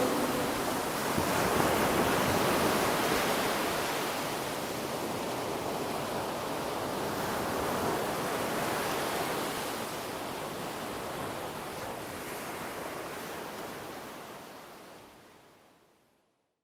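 Ocean surf: a steady rushing wash that swells and ebbs, fading out to silence near the end.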